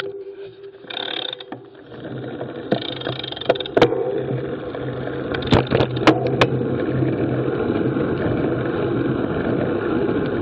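Road bicycle rolling along pavement, recorded from the moving bike: a steady rush of wind and tyre noise that builds up about two seconds in. A few sharp clicks and knocks from the bike come through in the middle.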